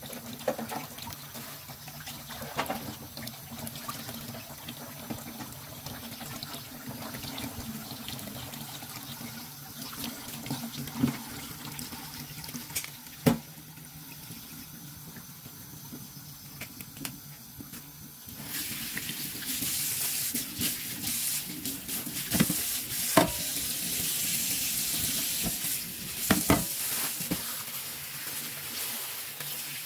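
Tap water running into a sink, starting about two-thirds of the way in, during the rinsing of fish and shrimp being cleaned. Scattered sharp clicks and knocks of handling come through before and during it.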